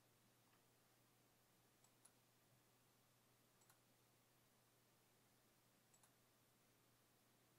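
Near silence with faint computer mouse clicks, mostly in quick pairs like double-clicks, about two seconds apart, over a faint steady low hum.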